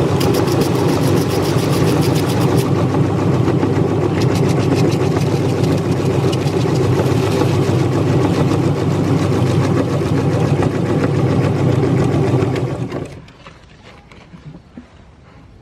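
Electric meat grinder motor running steadily while grinding a crunchy cookie, with a rapid crackle in the first couple of seconds, then switching off about thirteen seconds in.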